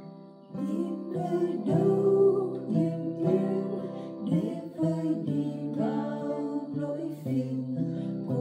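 Acoustic guitar strumming chords as accompaniment to voices singing a Vietnamese hymn; the singing comes in about a second in.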